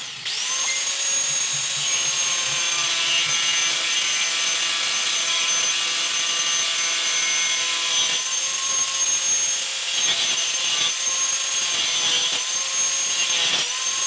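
Electric angle grinder running at a steady high whine while cutting or grinding, with the pitch sagging briefly under load a couple of times.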